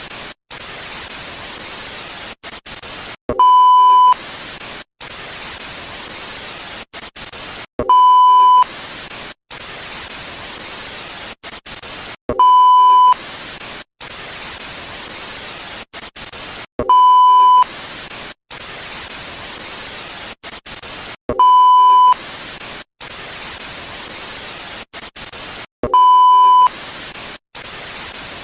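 Television static hiss alternating with a loud, steady 1 kHz colour-bar test tone. The tone sounds six times, about every four and a half seconds, each beep lasting under a second and louder than the hiss. The static between beeps cuts out briefly several times.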